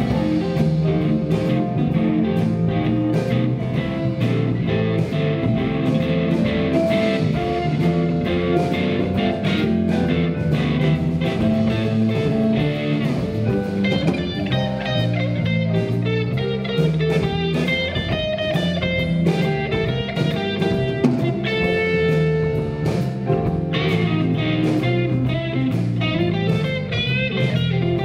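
Live blues band playing an instrumental passage: an electric guitar plays lead lines over bass, drums and keyboards. From about halfway the guitar's high notes stand out more, with bent notes near the end.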